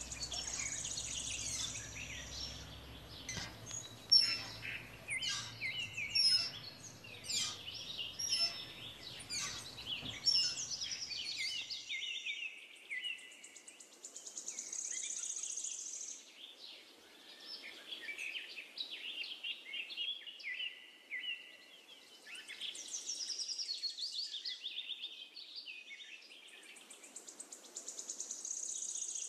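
Wild birds chirping and singing, many short calls and trills overlapping, with a high buzzing trill that comes back every several seconds.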